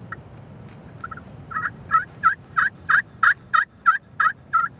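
Hand-held turkey pot call worked with a striker, imitating a hen's yelps: a run of about a dozen short, raspy notes, about three a second, that grows louder as it goes.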